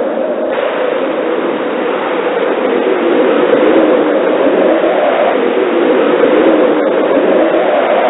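Blizzard wind blowing steadily, a dense rushing noise that swells a little about three seconds in.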